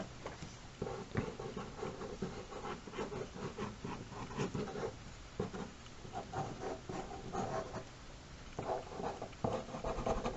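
Quick, irregular sketching strokes scratching across paper, coming in runs with short pauses between them.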